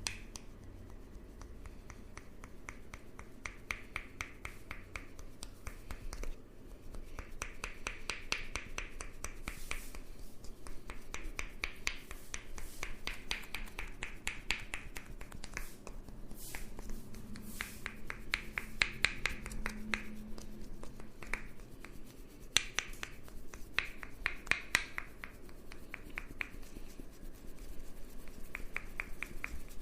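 Rapid percussive tapping of a masseur's hands, about ten sharp taps a second in repeated bursts of a second or two.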